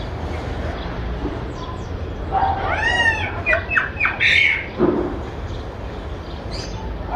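A bird squawking: a run of short, high calls that rise and fall in pitch, beginning about two seconds in and ending near five seconds, over a steady low hum.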